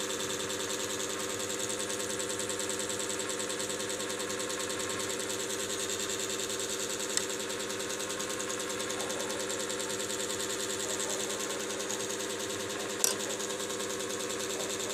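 A small machine running steadily with a fast buzzing hum and a hiss. Two sharp clicks, about seven and thirteen seconds in, the second louder.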